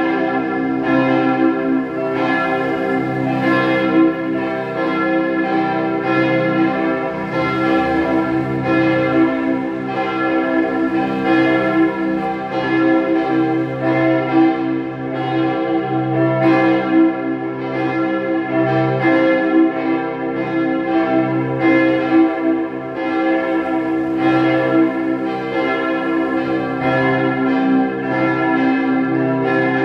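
Church bells ringing together in a continuous peal, their strikes overlapping irregularly and each tone sustaining under the next.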